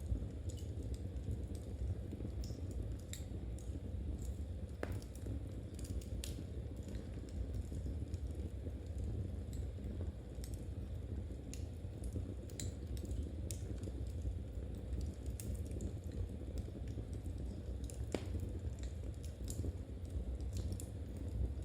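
Knitting needles clicking and tapping at irregular intervals over a steady low background rumble.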